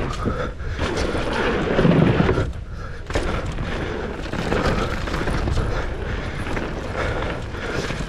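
Mountain bike riding fast down a dirt trail: wind buffeting the microphone with a low rumble, over tyre noise and the clatter of the bike on rough ground.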